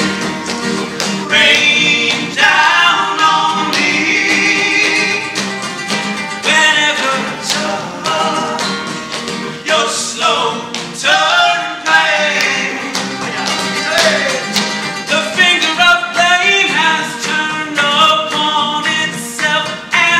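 A man singing live, with flamenco-style hand clapping (palmas) beating time under the voice and guitar accompaniment.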